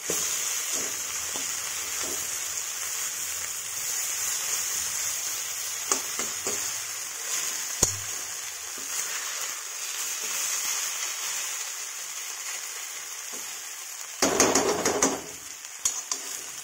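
Ground horse-gram dal paste sizzling steadily as it fries in oil in a metal kadai, being turned over once crisp underneath. A metal spatula clicks against the pan now and then and scrapes louder for about a second near the end.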